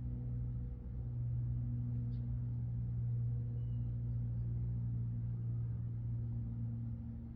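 A steady low hum, a little louder from about a second in, with a faint short high chirp near the middle.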